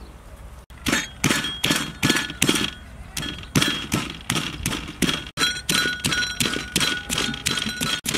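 Stone pestle pounding red chilies and garlic in a stone mortar: steady knocks about two to three a second, each with a short ring, starting about a second in.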